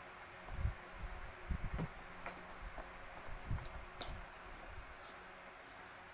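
Soft low bumps and a few light clicks of electric-fan parts being handled and fitted together, over a faint steady hiss.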